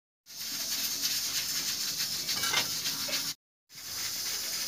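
Pressure cooker at full pressure, steam hissing steadily from its weight valve as the weight jiggles and rattles. The hiss is broken by two short silences.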